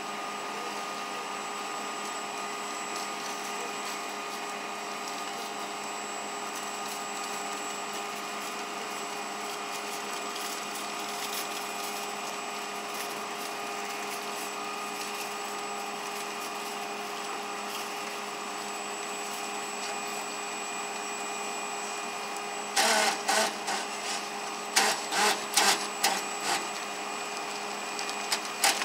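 A steady machine hum holding several pitches over a whirring hiss. About 23 seconds in, a run of loud knocks and clatters breaks in for a few seconds, and one more comes near the end.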